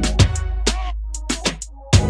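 Background music with a drum beat and heavy bass; it thins out and quietens briefly near the end.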